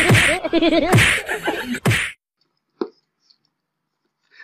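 Three sharp slaps about a second apart, with a voice laughing in quick bursts between them. The sound stops about two seconds in.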